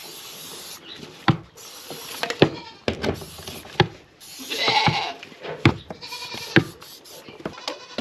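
Aerosol spray can hissing in three short bursts onto a dairy goat's udder, amid sharp knocks of the goat's hooves on the wooden milk stand. About halfway through the goat gives a short bleat.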